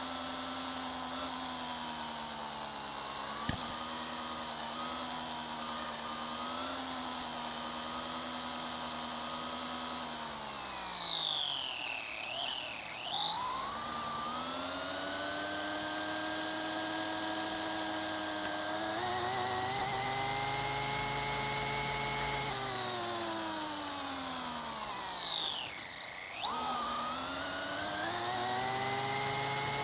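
Electric RC car's motor and gear drivetrain whining at speed. The high pitch slides down twice as the car slows, about halfway through and again a few seconds before the end, then climbs back with a louder surge as it accelerates.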